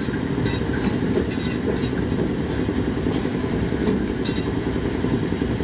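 Steady low rumble of a running engine, with a few faint ticks over it.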